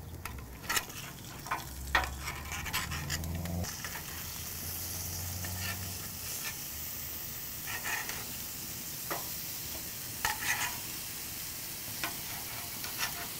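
Thick ribeye steaks sizzling steadily on an iron grate over a wood fire, with scattered sharp clicks and clanks of metal tongs against the grate as the steaks are flipped at the halfway point of the cook.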